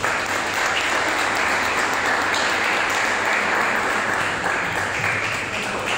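Audience applauding: many hands clapping in a dense patter that starts suddenly and tapers off near the end.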